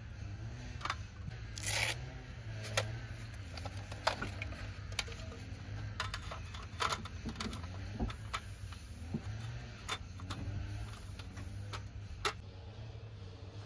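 Scattered clicks, knocks and scrapes of camp gear being handled on a metal folding table, over a low steady hum.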